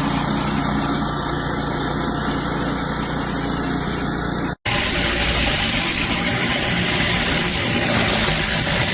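Pressure washer running steadily. About halfway through, the sound cuts abruptly to a hissier stretch of the machine running, with water spraying.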